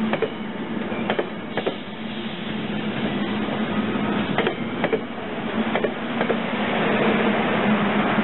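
SEPTA push-pull passenger coaches rolling past with a steady rumble and hum, their wheels clicking over rail joints, often in close pairs, every second or two.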